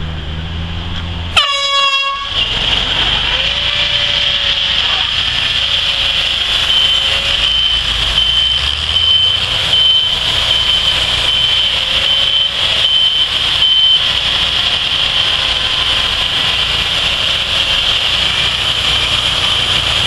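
One short air horn blast about a second and a half in, the starting signal for a race between portable sawmills. After it, the sawmills' engines run steadily.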